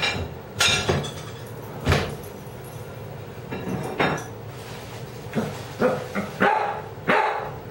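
A dog barking, about seven short single barks at uneven intervals.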